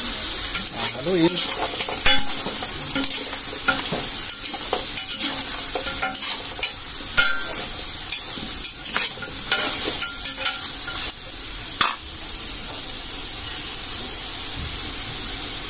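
Chopped duck meat sizzling in its own fat and soy sauce in a metal pot, with a spatula scraping and knocking against the pot as it is stirred. The stirring stops about twelve seconds in, leaving a steady sizzle.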